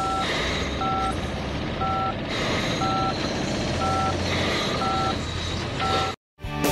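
Film-leader countdown sound effect: a short two-tone beep about once a second, seven times, over a steady crackling hiss and low hum. It cuts off suddenly just after six seconds.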